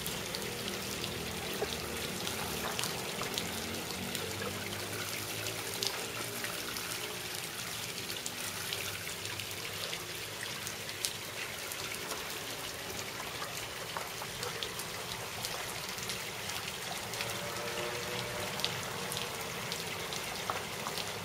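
Water from a small lawn sprinkler spraying onto wet asphalt: a steady hiss of falling water with many small ticks of drops landing.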